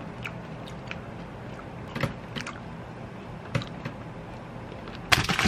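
Quiet eating of shine muscat grapes: faint chewing and a few soft clicks over a low room hum. About five seconds in, a loud crinkling of a plastic bag starts.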